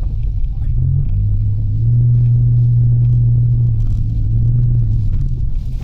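Engine and road rumble inside a moving Mitsubishi Delica's cabin. A steady low engine drone comes in about a second in and eases off near the end.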